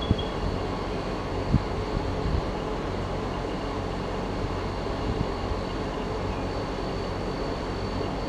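Steady low outdoor rumble with a few soft knocks and a faint, thin, steady high tone; the peacock does not call.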